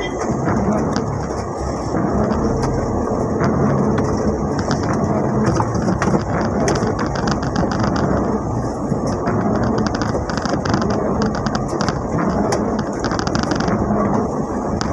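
Heavy rain falling on a moving Mitsubishi L300 van, heard from inside the cab: a steady rush of rain, engine and road noise, dotted with many small irregular ticks of drops.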